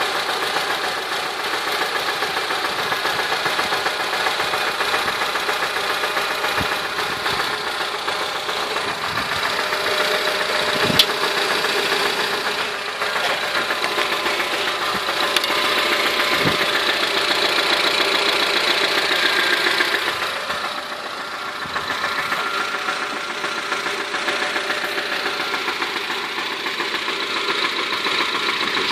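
A 2008 Honda Civic running with a bad bearing noise: a steady, loud mechanical noise that dips briefly about two-thirds of the way through, with a sharp click near the middle.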